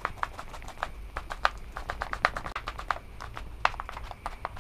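A kitchen knife chopping green chillies on a cutting board: quick, uneven knocks of the blade on the board, several a second.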